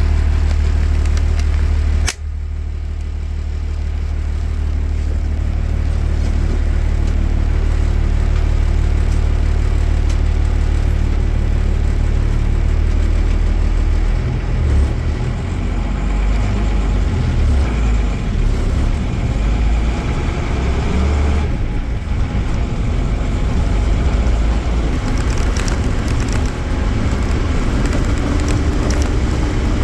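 Mercedes-Benz OM-366A inline-six diesel of an OF-1318 bus running, a steady low drone with a sharp click about two seconds in. About halfway through the engine note turns rougher and uneven, with rising pitch in places and a brief dip, as the engine takes load.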